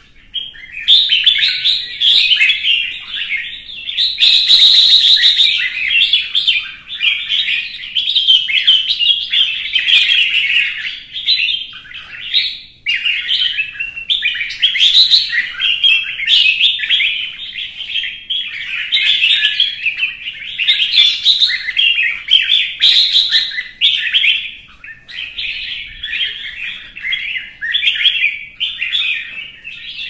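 Red-whiskered bulbul singing a near-continuous stream of quick, clear, chattering phrases with only short pauses. This is the fired-up competition song (hót đấu) of a worked-up caged male.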